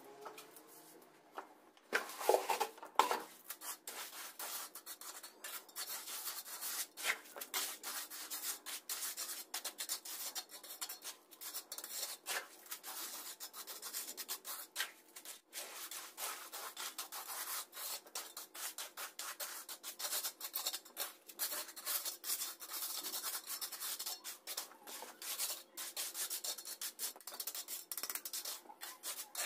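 A hand trowel scraping and spreading a wet terrazzo mix of white stone chips across a floor, in quick, irregular repeated strokes. It starts about two seconds in, after a quieter moment.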